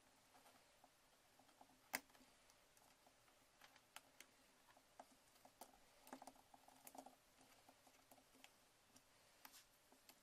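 Faint, scattered light clicks and taps of hands handling a plastic MacBook MagSafe power adapter and twisting its exposed cable wires, with one sharper click about two seconds in.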